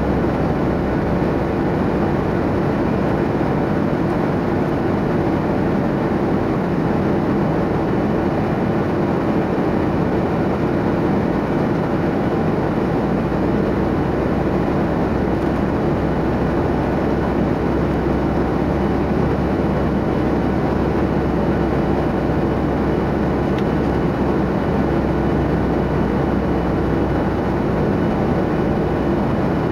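Steady cabin noise of a jet airliner in flight: an even rushing of air and engine noise with a low hum underneath, unchanging throughout.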